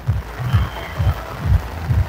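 Low bass thumps of a background music beat, about two to three a second, over the even hiss of heavy rain.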